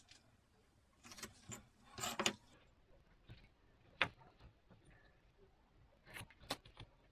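A small clear plastic bag rustling as it is handled, with a few sharp clicks of small wooden blocks being set down on a workbench, the loudest about four seconds in.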